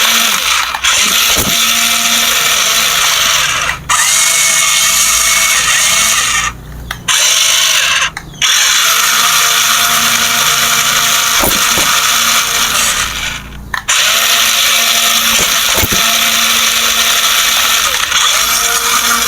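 Small electric motor and plastic gearbox of a remote-control toy vehicle whirring loudly. It runs in long spells with a few brief stops as the controls are worked.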